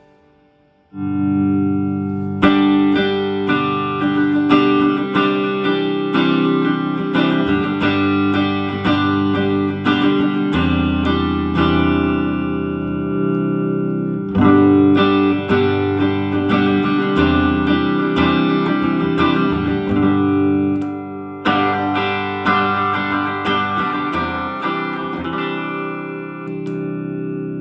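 Electric guitar played through a vintage Silvertone 1484 Twin Twelve tube amp: a chord struck about a second in, then a run of picked notes and chords that dies away near the middle, and fresh chords struck twice more, the last left ringing.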